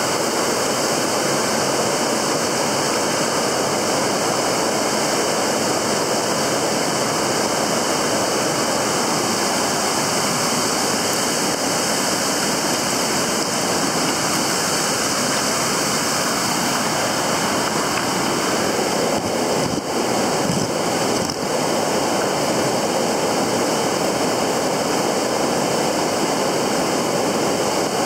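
Steady rush of stream water running over rocks, an even unbroken noise throughout.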